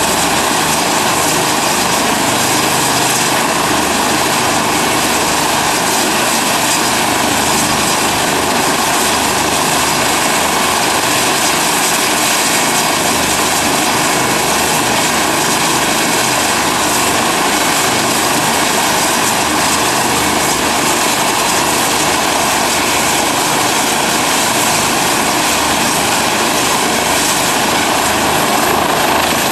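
Eurocopter EC135 rescue helicopter's twin turbine engines and rotors running on the ground: a steady, loud turbine and rotor noise.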